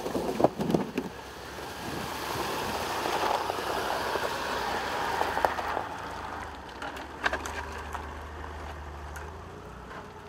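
Land Rover Discovery 4 crawling through a flooded, muddy rut: water and mud churning and splashing under the tyres over a low engine hum, with a few sharp clicks near the start.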